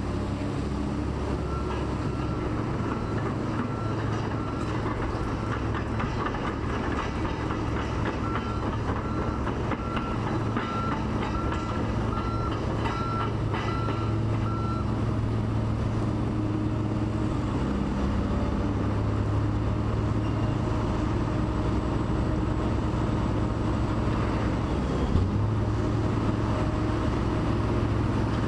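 Diesel engines of demolition plant running steadily, with a reversing alarm beeping at an even pace through the first half and some clatter of material.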